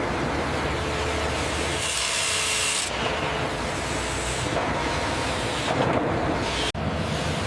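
Sawmill machinery running: a steady, loud mechanical din of saws and conveyors handling wood. It changes character abruptly a couple of times and cuts off sharply near the end before starting again.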